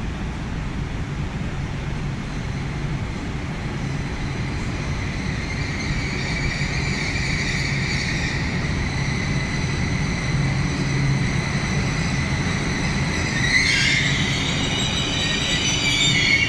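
Hitachi Rock double-deck electric regional train pulling into the platform and slowing, with a steady low rumble. A high squeal sets in a few seconds in, grows stronger, and is loudest in the last few seconds as the train comes toward a stop.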